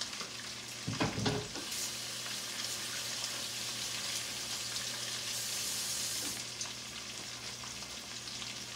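Sliced carrots sizzling in bacon grease in a frying pan, a steady hiss that swells for about a second past the middle. A short clatter about a second in.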